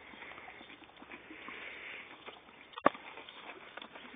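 Exmoor pony chewing on a frozen apple-and-carrot ice lolly: scattered small crunching clicks, with one sharp, louder click nearly three seconds in.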